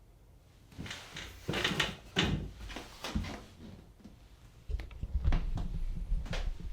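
Manual typewriter being worked: irregular mechanical clicks and sliding, ratcheting noises, with a low rumble joining them from about five seconds in.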